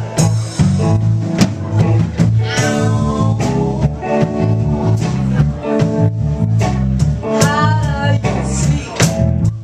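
A small live band playing: a woman singing into a microphone over electric guitar, electric bass and a drum kit keeping a steady beat. Her voice comes in with two wavering sung phrases, about two and a half seconds in and again near eight seconds.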